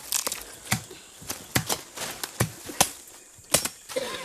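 A hand tool chopping into soil while weeding a garden plot: a quick, irregular series of sharp strikes.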